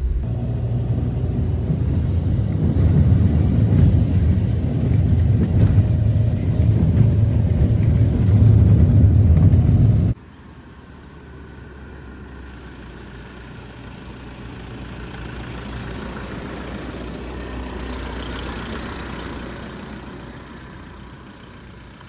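Steady low engine and road rumble from inside a moving car. About ten seconds in it cuts to the quieter sound of a Toyota Fortuner SUV and a car behind it driving along the road, which swells as they approach and pass, then fades.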